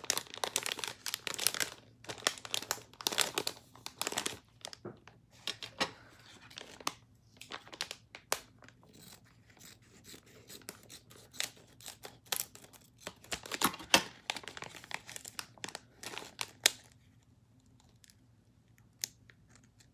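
Packaging being torn and crinkled by hand as a mail package is worked open, in irregular bursts that die down near the end.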